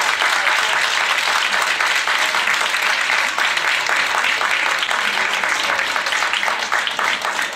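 Audience applauding: dense, steady hand-clapping from a crowd in a hall.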